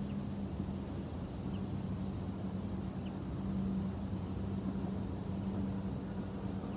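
Steady low background hum with a constant drone, and a few faint short chirps above it.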